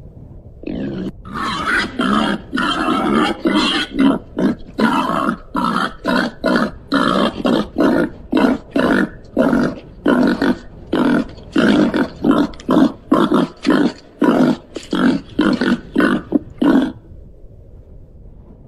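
Babirusa grunting in a rapid, regular series, about two short grunts a second, keeping on for some fifteen seconds before stopping near the end.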